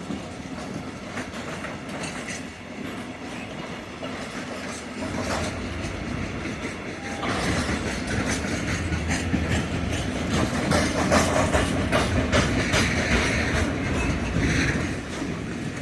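Railway wagons rolling through a marshalling yard, wheels clicking over rail joints and points, growing louder about seven seconds in, with brief wheel squeal near the end.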